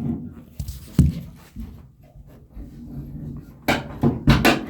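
The hood of an old 1965 Pontiac GTO being lifted open: a sharp metal knock at the start and another about a second in, small rattles, then a cluster of scraping clunks near the end.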